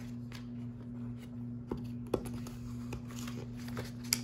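Pages of a paperback picture book being turned by hand: soft paper rustling with a couple of sharp taps about halfway through and another near the end. A steady low hum runs underneath.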